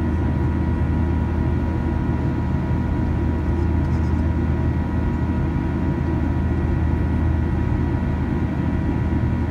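Steady cabin noise of a Boeing 737-800 in flight, heard from a window seat over the wing: a deep, even rumble with thin steady tones from its CFM56-7B turbofan engines.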